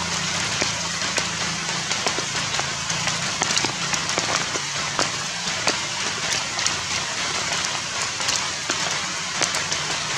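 Steady rain falling, with many single drops ticking sharply on nearby surfaces.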